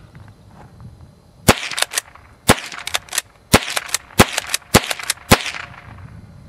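Remington Model 12 .22 pump-action rifle fired six times in quick succession, the shots coming faster after the first two, with the pump action clacking between shots as it is worked.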